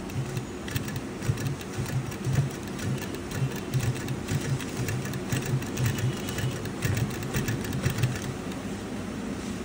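Ahmar 95-T-10 sewing machine running steadily while stitching fabric, with a rapid, even ticking from the needle and feed mechanism.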